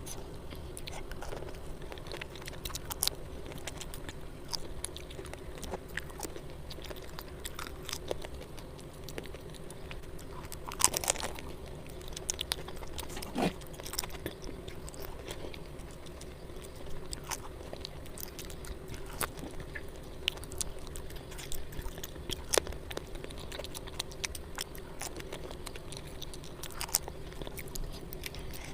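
Close-miked chewing and crunching of food, with frequent short crisp clicks and a few louder crunches about halfway through.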